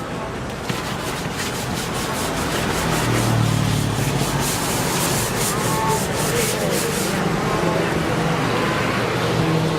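Rhythmic scrubbing of a refrigerator surface, a brush or cloth rubbed back and forth at about three strokes a second, over a steady low hum.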